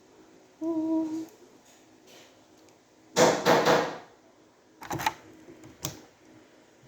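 Handling of a plastic action figure being posed: a loud rattling burst of clicks a little after three seconds, then two sharp single clicks about a second apart. A brief hummed note comes about a second in.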